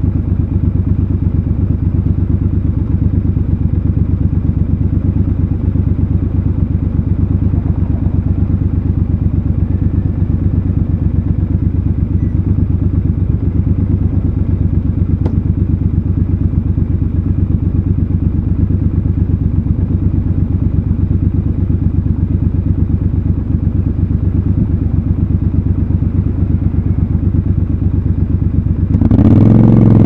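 Triumph Scrambler 1200 XC's 1200 cc parallel-twin engine idling steadily with an even low beat. About a second before the end the revs rise sharply as the bike pulls away.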